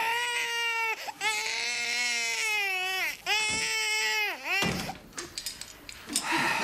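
A baby crying in three long wails, breaking off about four and a half seconds in; faint clicks and rustling follow.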